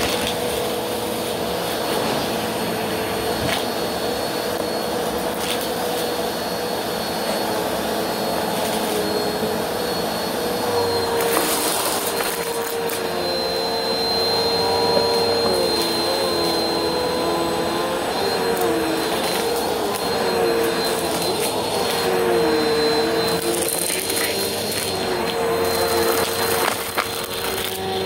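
Upright bagless vacuum cleaner running steadily, sucking up confetti and glitter from carpet, first through its hose wand and then through the floor head. Its motor drone holds steady, with a lower tone that wavers in pitch from about ten seconds in and brief louder hisses twice.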